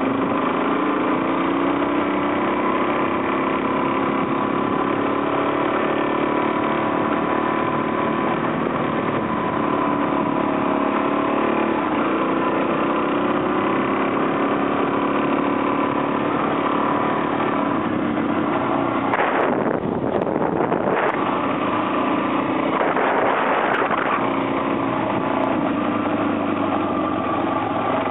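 Adventure motorcycle's engine running steadily while riding along, its pitch drifting a little. About two-thirds of the way through the engine note briefly fades under a rush of wind noise, twice.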